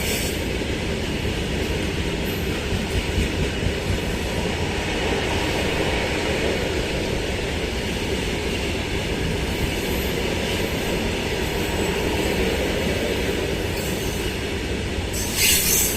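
A loaded coal freight train rolling past: a steady heavy rumble of wagon wheels on the rails, with a few louder knocks about three seconds in and a short burst of higher, hissing screech near the end.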